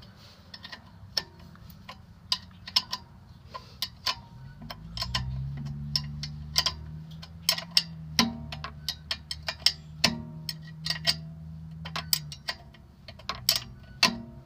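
Metal hand tools clicking and clinking in irregular single strikes, some with a short metallic ring, as work goes on at a car's rear brake and hub. A low steady hum comes in about five seconds in and stops near the end.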